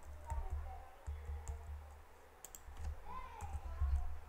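Scattered clicks of a computer keyboard and mouse, a few sharp taps spread irregularly, as text is selected and deleted in an editor.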